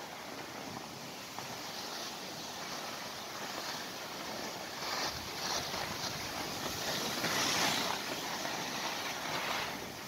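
Skis hissing and scraping over snow, with wind rushing over the microphone. The scraping swells a few times in the second half.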